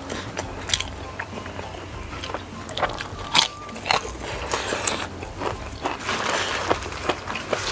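Close-miked crunching and chewing of a crispy fried morsel (udang rambutan, shrimp in a shredded fried coating). It comes as a run of sharp crackling bites, loudest about three and a half and four seconds in, with a denser hissing stretch near the end.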